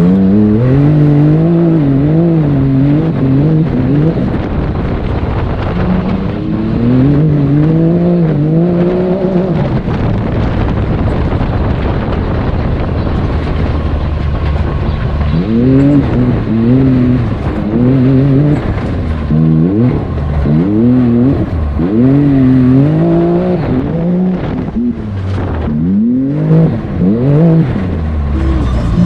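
Can-Am Maverick X3 Turbo RR's turbocharged three-cylinder engine heard onboard, revving up and down again and again as the throttle is worked hard off-road. There is a steadier stretch in the middle. In the second half the throttle swells come quick and close together, with a rush of tyre and dirt noise underneath.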